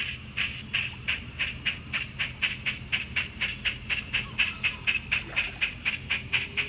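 Steam locomotive chuffing as a train pulls away: a regular beat of about three chuffs a second that slowly quickens, over a low steady hum.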